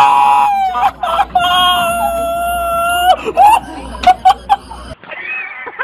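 A rooster crowing twice, the second crow held steady for nearly two seconds, followed by a few sharp clicks.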